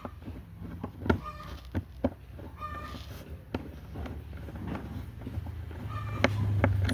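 Sharp clicks of a Kemei KM-1986 electric hair clipper being handled and switched, then near the end its motor starts and runs with a steady low hum: the repaired switch now turns it on.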